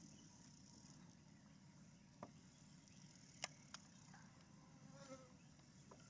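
Quiet bush ambience: faint, high-pitched insect noise throughout, with a few sharp clicks in the middle.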